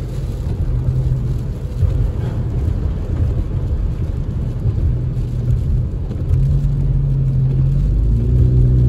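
Vehicle interior noise while driving on a rain-soaked road: the engine and tyres on wet pavement give a steady low rumble. A low engine hum comes up about six seconds in and holds to the end.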